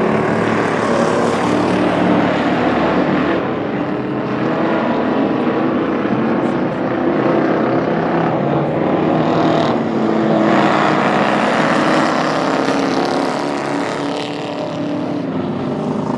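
Several Ford Crown Victoria V8 stock cars racing on a dirt oval. The engines run hard together in a continuous drone that swells and eases in pitch and loudness as the cars work through the turns.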